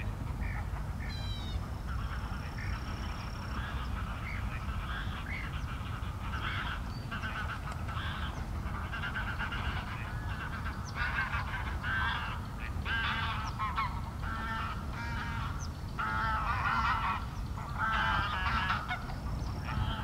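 A flock of waterfowl calling in many overlapping short calls over a steady low rumble. The calling grows busier and louder in the second half.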